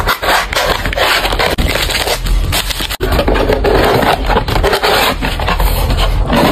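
Corrugated cardboard shipping box being folded and pressed shut by hand: dense crinkling and scraping of the cardboard flaps, broken by a short gap about three seconds in.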